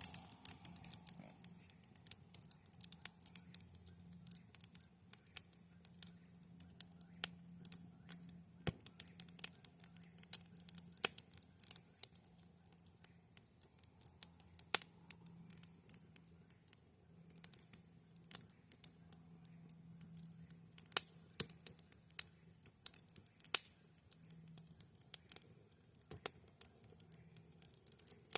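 Wood campfire crackling, with irregular sharp pops and snaps over a steady high hiss.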